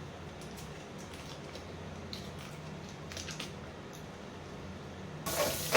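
A few faint clicks of handling over a low steady hum, then near the end water suddenly starts pouring.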